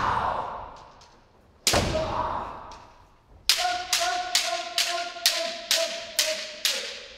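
Bamboo kendo shinai clacking, with a ringing echo after each hit: one sharp strike about 1.7 s in, then a fast even run of about eight strikes, roughly two a second, against the receiver's raised shinai, as in kirikaeshi left-right men strikes. A long, held kiai shout runs under the run of strikes.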